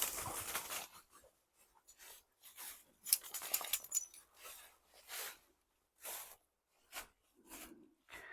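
Irregular crunching and rustling in woodland leaf litter and undergrowth, coming in short bursts with brief pauses between them.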